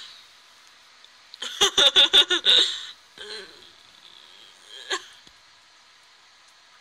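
A person laughing: a quick run of about six giggles about a second and a half in, then one short burst near five seconds.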